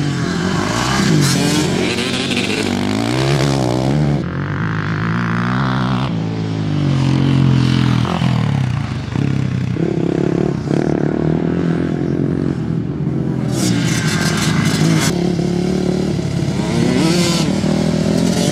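Dirt bike engines revving on a dirt track, their pitch rising and falling over and over as the riders open and close the throttle.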